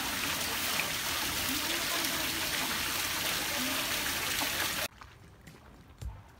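Water pouring from inlet spouts into glass live-seafood display tanks, a steady splashing rush. It cuts off abruptly near the end, leaving only faint low background sound.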